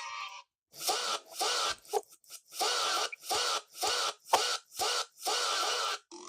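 A short soundboard sound effect played over and over in quick succession, about ten bursts roughly half a second apart, each cutting off abruptly.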